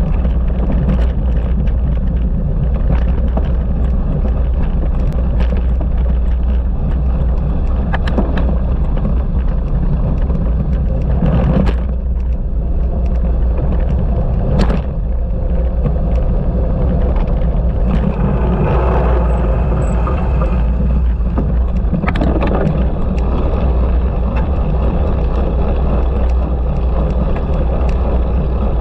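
Heavy, steady wind rumble on the microphone as a cyclocross bike is ridden at race pace, with a few sharp knocks and rattles from the bike going over rough ground.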